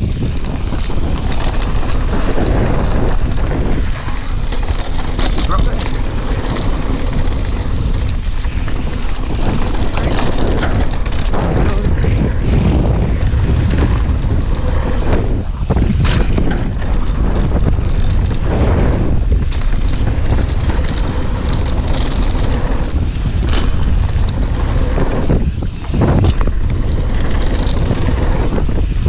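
Wind buffeting a helmet-camera microphone at speed over the rumble and rattle of a mountain bike's tyres and frame on a loose dirt downhill trail, with scattered knocks from bumps. Near the end a brief lull ends in a heavy thump.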